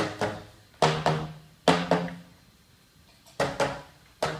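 Percussion performance: pitched drum strikes, mostly in quick pairs, each hit ringing low and fading within half a second, in a slow rhythm with a short pause about two seconds in.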